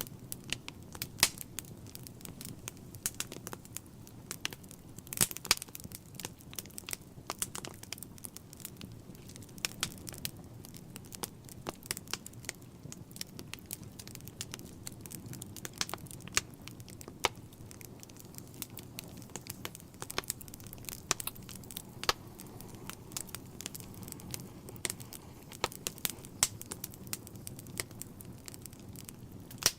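Wood fire crackling in a fireplace: irregular sharp pops and snaps from the burning logs over a steady low rush of the flames.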